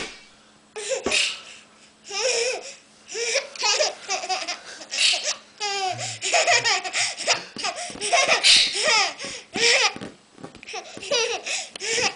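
Toddler laughing in repeated bouts, with short pauses between them.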